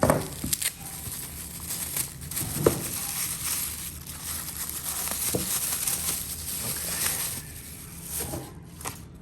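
Packaging being handled and unwrapped: crinkling and rustling with a few sharp clicks and taps, dying down near the end.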